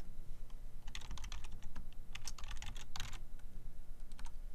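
Computer keyboard typing: a run of quick, irregular keystrokes starting about a second in and stopping shortly before the end, as a user name and password are entered.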